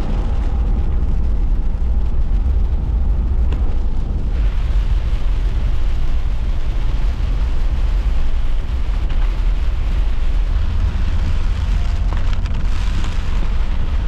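Storm wind and heavy rain, with a steady deep rumble of wind on the microphone under a hiss of rain. The hiss grows brighter about four seconds in and again near the end.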